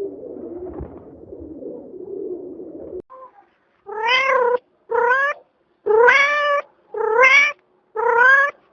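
Domestic cat meowing five times, about one call a second, each call rising and then falling a little in pitch. These follow a low warbling sound that cuts off about three seconds in.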